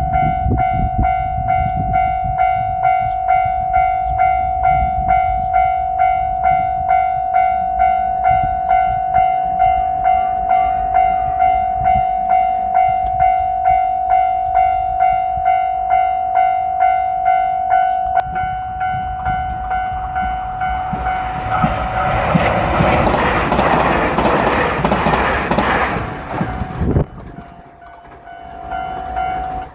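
Japanese railroad crossing warning bell ringing steadily, with a clanging pulse about twice a second. Then a diesel limited express train rushes through the crossing for several seconds and its noise cuts off sharply near the end.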